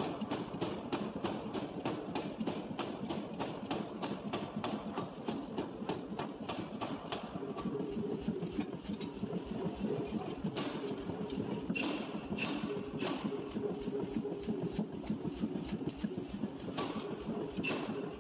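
A forging hammer striking hot steel in rapid, evenly spaced blows, about five a second. After about eight seconds the blows thin out to scattered knocks, with some ringing tones.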